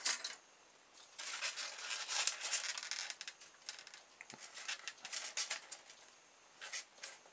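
Scratchy rustling and small clicks as a stiff wire is pushed through and worked in a small piece of polystyrene foam: a long scratchy stretch early on, then scattered clicks and short scrapes, with one brief scrape near the end.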